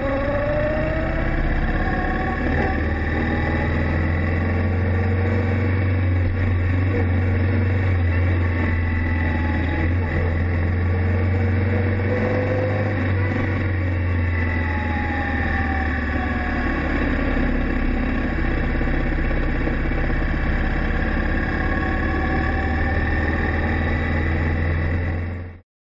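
Many motorcycles of a massed ride running together in a steady low engine rumble, with slow rising and falling tones above it. It cuts off abruptly near the end.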